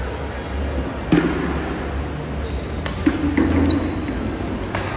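Badminton rackets striking the shuttlecock in a doubles rally: a few sharp cracks, the loudest about a second in, others near the middle and near the end, echoing in a large hall.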